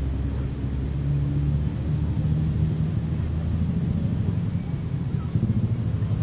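A steady low engine drone with a low hum-like pitch, rumbling without a break.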